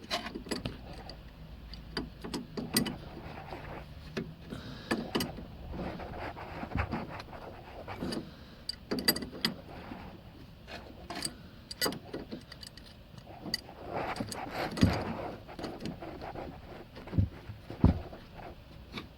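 Adjustable spanner working the back bolt behind a new track rod end on a Matiz's steering: irregular metallic clicks, taps and clinks as the bolt is tightened, with a few heavier knocks in the second half.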